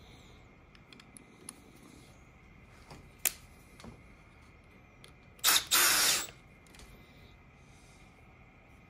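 Cordless drill run in two quick trigger pulls about five and a half seconds in, tightening a fastener on a CNC drag-chain bracket, after a few light clicks of small metal parts being handled.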